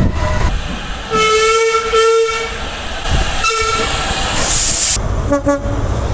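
Train horn sounding: a long blast about a second in, a shorter blast a little later, then two quick short toots near the end, over the rumble of the train. A short hiss comes just before the toots.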